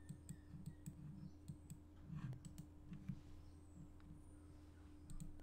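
Faint computer mouse clicks, scattered and irregular, over a low steady electrical hum.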